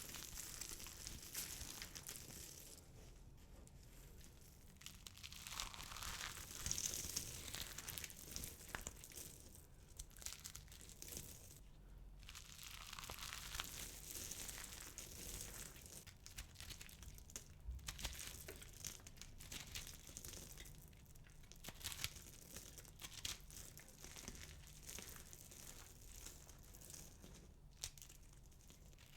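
Balls of dry soap being crushed and crumbled, giving a dense crackling crunch of many small snaps that swells and eases in waves.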